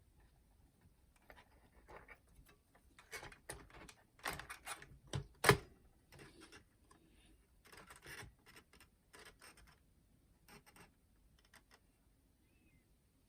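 Scattered small clicks and knocks of hands working on a boombox's plastic casing and parts, with one sharper knock about five and a half seconds in.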